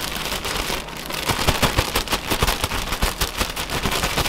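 Plastic sandwich bag crinkling and rustling as pieces of fish are shaken inside it with dry fish-fry breading, a fast, continuous crackle that thickens about a second in.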